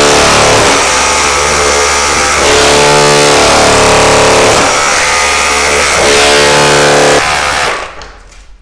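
Bosch GBH18V-26 cordless SDS-plus rotary hammer in hammer-only mode driving a scutch comb chisel into a wall, chipping away the plaster layer for a back box. A loud, steady, rapid hammering that stops about seven seconds in.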